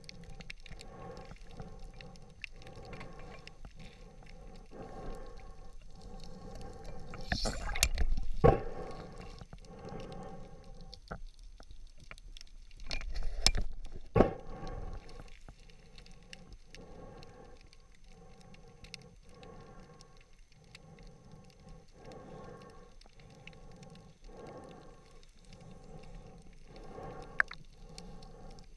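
Underwater sound through an action camera's waterproof housing: a steady pulsing hum, about one and a half pulses a second, with two louder swells of water noise about a quarter and a half of the way through.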